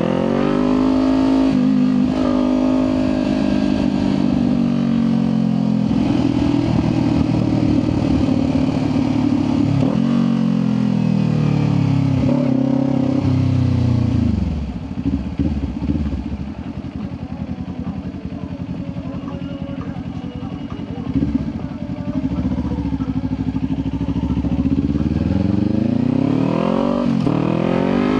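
Sport motorcycle engine under way: revs climbing as it pulls away, a steady run, then the engine note falls as the bike slows about halfway through and runs low and quieter for several seconds before accelerating again near the end.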